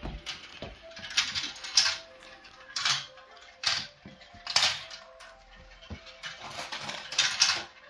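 Marbles clattering and rattling down a plastic marble run's tracks and funnels: a series of short, sharp rattles about once a second.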